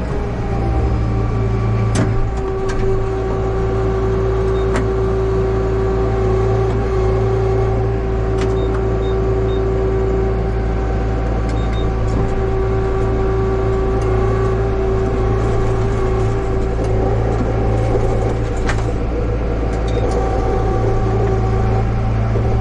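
Yanmar tractor's diesel engine running at a steady speed, with a steady whine over it and a few light clicks.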